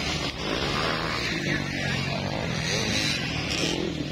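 Motocross dirt bike engines revving, the pitch rising and falling as the throttle is worked.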